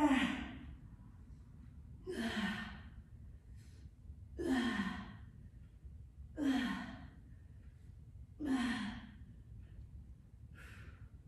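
Heavy, sighing exhales from a person pressing dumbbells while lying on the floor. Five strong breaths come about every two seconds, each dropping in pitch, with a fainter one near the end: effortful breathing out in time with each press, near the end of a strength set.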